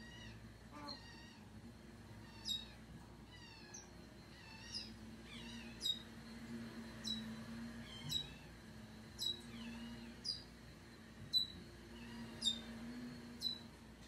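Parrot squeaks from a pair of eclectus parrots in courtship feeding: short, sharp calls that fall in pitch, repeated about once a second from a couple of seconds in, over a steady low hum.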